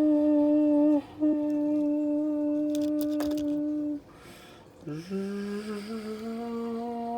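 A person humming a steady droning tone as a toy airliner's engine noise. The hum breaks briefly about a second in and stops about four seconds in. After a short pause it starts again low, slides up and holds at a lower pitch than before. A few light clicks sound about three seconds in.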